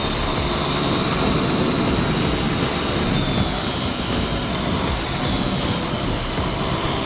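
Steady rush of wind over a helmet-mounted camera on a Honda dual-sport motorcycle at road speed, with the engine running underneath.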